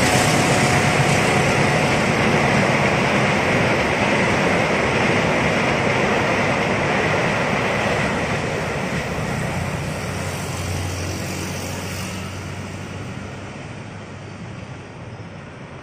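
Argo Dwipangga passenger train's coaches rolling past, a steady rumble of wheels on rail that fades away gradually as the last cars go by, mixed with motorcycles passing close.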